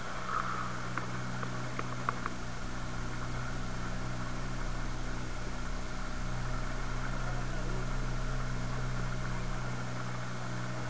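A small motorboat's engine running steadily at speed, with water rushing past the hull; a few light clicks in the first couple of seconds, and the engine swells a little in the middle.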